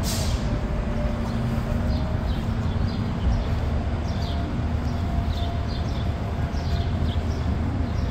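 Steady low rumble and hum of a large vehicle engine running nearby, with a brief hiss at the very start. From about four seconds in, short high bird chirps that drop in pitch repeat every half second or so.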